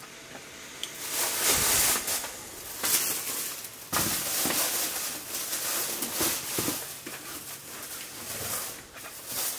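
Rustling and rubbing from hands working a rag and a new outboard oil filter while its O-ring is pulled out. It comes in uneven bursts, with a few short clicks.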